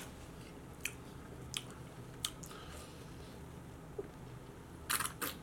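Close-miked mouth sounds of a man chewing, a few soft clicks, then drinking from a soda can, with two short gulps near the end.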